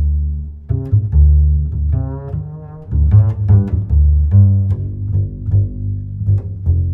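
Background music of low string notes, some plucked, some bowed, in a quick run of notes.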